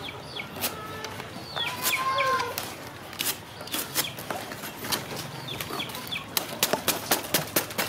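Restored butcher's knife chopping through a green banana leaf stalk: a string of sharp, quick cutting strokes that come faster near the end.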